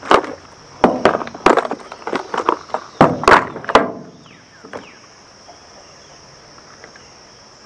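Clear plastic tackle box being handled and opened: a quick series of sharp plastic clicks and knocks from the latches, lid and trays, which stops about four seconds in. After that only a steady high hiss and a few faint chirps remain.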